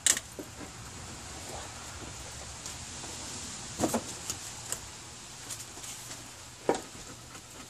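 Ford Focus 2.0L SOHC cylinder head being shifted and settled onto the engine block by hand: a few sharp metallic knocks and scrapes, one at the start, two about four seconds in and one near the end, over a steady faint hiss.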